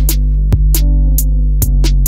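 Background music with a steady beat of regular percussion hits over sustained bass notes.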